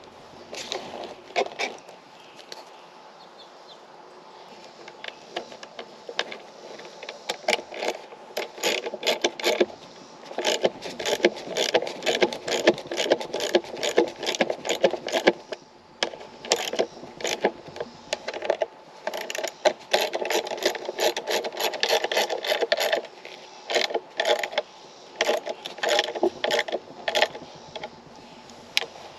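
Hand ratchet clicking in quick runs of strokes, driving bolts into the threaded inserts of a mower seat back, with short pauses between runs.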